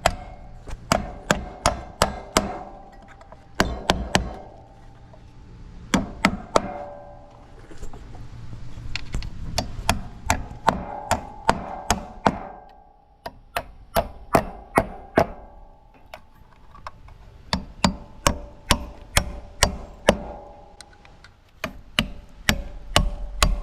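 Hammer driving nails into metal joist hangers on wooden joists: runs of quick strikes, about three a second, with short pauses between the runs.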